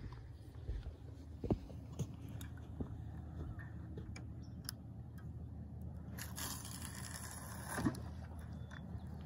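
A spinning reel being worked after a cast, with faint scattered clicks and a few seconds of scraping near the end that finish in a small knock. A low steady rumble runs underneath.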